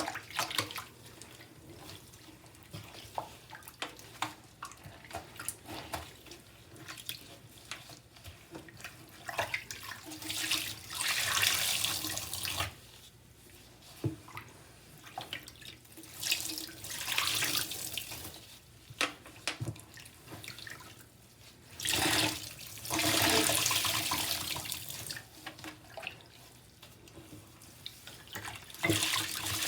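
Wet, soapy sponges being squeezed and rinsed: several bursts of water gushing out, each lasting a second or two, with drips and small splashes in between.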